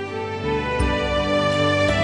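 Slow instrumental background music with sustained tones over soft low beats, growing a little louder about half a second in.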